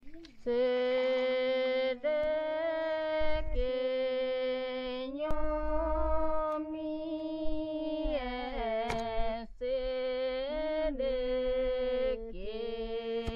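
Background music: a slow, wordless melody of long held notes that bend slightly at the ends, in phrases of one to two seconds with short breaks.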